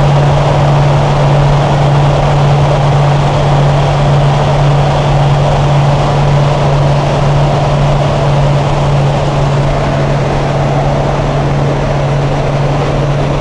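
Light propeller aircraft's engine droning steadily in cruise flight, heard from inside the cabin as a loud, constant low hum with rushing noise over it.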